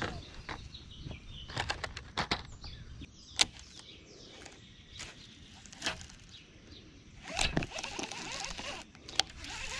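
Scattered clicks and knocks of a baitcasting rod and reel and tackle being handled, the sharpest about three and a half seconds in. Birds chirp faintly behind, mostly near the end.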